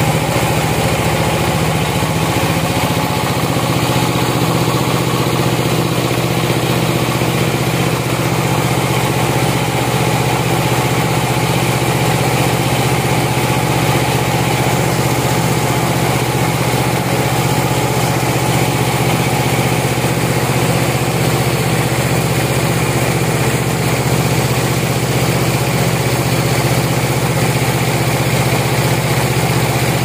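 Band sawmill running with a steady, even drone from its drive and spinning blade while a large log moves through on the carriage.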